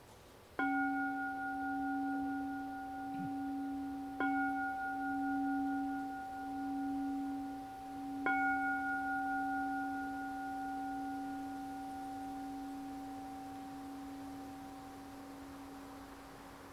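Meditation bowl bell struck three times about four seconds apart. Each stroke rings on with a low hum that pulses slowly, and the ringing fades away near the end. The three strokes mark the start of a period of silent seated meditation (zazen).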